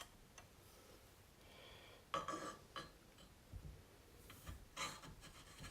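Faint handling noises from a BMW R80 fork tube being slid into its fork slider through the new seal: a few short scrapes and light metal knocks, beginning about two seconds in.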